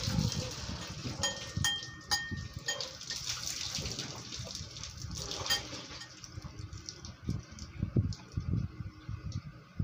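Hands handling a cardboard flashlight box and sliding it open: a rustling, scraping hiss of cardboard with scattered clicks, then a few low thuds near the end as the box is set down and worked.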